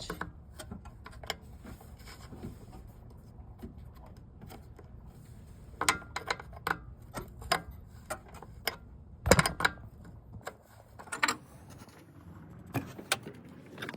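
Scattered metallic clicks and knocks of a hand tool with a 1/2-inch head tightening the fittings on a newly fitted car radiator, with a few louder clanks a little after the middle.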